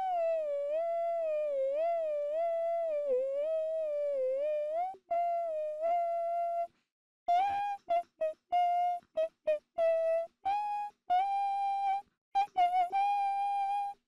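A high voice humming a melody. It starts with a long note whose pitch wavers up and down for about five seconds, holds a steadier note, then after a brief pause breaks into a string of short, separate notes.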